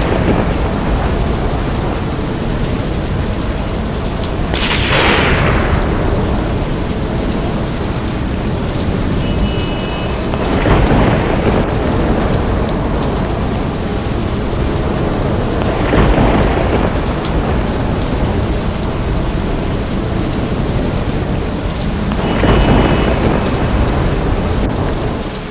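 Thunderstorm: heavy rain falling steadily with five loud rolls of thunder, one about every five or six seconds.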